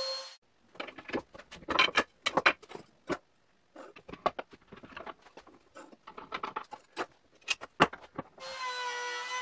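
A palm router's whine cuts off about half a second in. Then come scattered clicks, knocks and metallic clatter as a plastic quick-grip bar clamp is worked and tools are handled on a wooden table. The router's whine comes back near the end.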